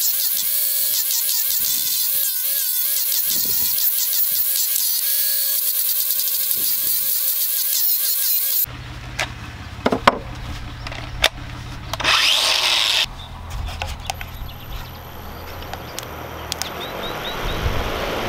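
Angle grinder with a sanding disc running against an ash slab, its whine wavering as the load changes. It stops abruptly about two-thirds of the way in, leaving a lower steady hum with scattered knocks and handling sounds.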